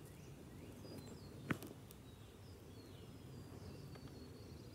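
Quiet outdoor ambience: a low steady background rumble with faint, high bird chirps, and one sharp click about one and a half seconds in.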